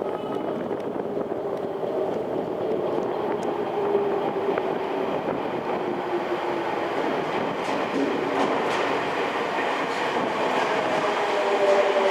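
Tokyo Metro 05 series subway train running into the station, with a steady rumble and scattered clicks of the wheels over the track. Near the end a motor whine falls in pitch as the train slows.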